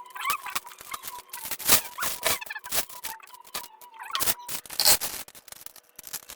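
Scissors snipping and plastic packaging rustling and clicking as small items are opened by hand. A faint steady high tone runs underneath for the first four seconds or so.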